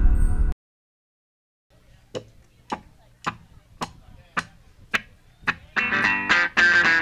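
Bell-like ambient intro music cuts off abruptly, and after a second of silence come seven evenly spaced sharp clicks, just under two a second, counting off the tempo. Near the end a live funk band comes in with electric guitar and drums.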